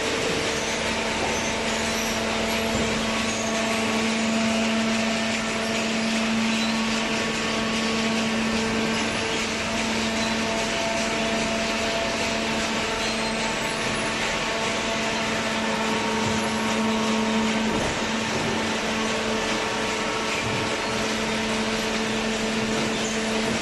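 Hydraulic power unit of a vertical baler running: an electric motor and pump humming steadily with a constant pitch.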